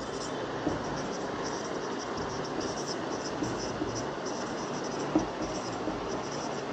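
Marker pen writing on a whiteboard: a run of short, high scratchy strokes as letters are drawn, over a steady background hiss, with one light tap about five seconds in.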